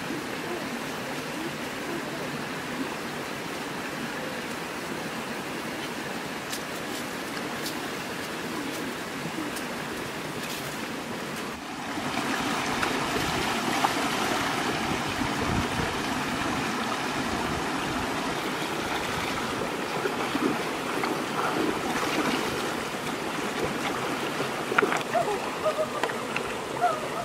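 A shallow rocky stream running over stones, a steady rush of water that gets louder about twelve seconds in.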